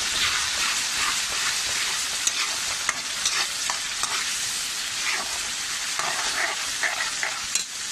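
Ground onion-tomato masala paste sizzling in hot oil in a kadhai while a spatula stirs and scrapes it around the pan, with scattered spitting pops. This is the masala being fried down (bhuna) before the boiled kidney beans go in.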